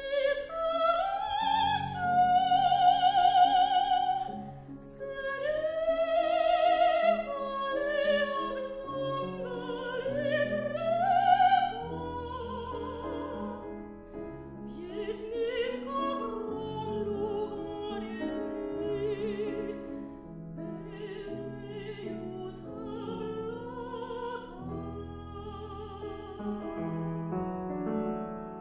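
Soprano singing a classical art song with grand piano accompaniment. The voice swells through long high notes with wide vibrato, loudest in the first twelve seconds, then goes on more softly over the piano chords.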